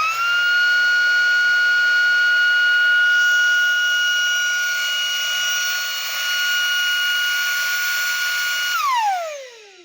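Timberk T-VCH-65 upright vacuum cleaner's motor running with a high, steady whine whose pitch steps up slightly at the start. Near the end it is switched off, and the whine falls steeply in pitch and fades as the motor spins down.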